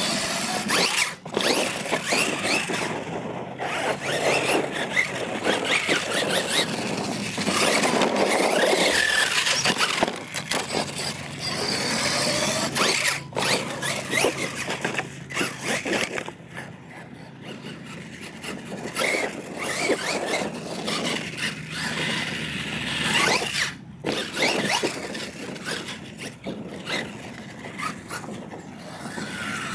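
Losi LMT electric RC monster truck running on a 3S battery: its motor and drivetrain whine, rising and falling in pitch with the throttle, over the scrabble of its tyres on dirt. The sound drops away briefly a few times.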